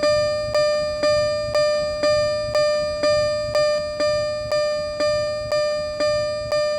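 Japanese railway level crossing alarm ringing its electronic 'kan-kan' bell: the same pitched ring struck evenly about twice a second, each ring fading before the next.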